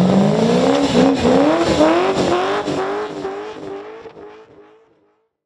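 Supercharged Holden Commodore's engine revving hard through a burnout, its note climbing in waves over the noise of the spinning tyres. The sound fades away over the last two seconds.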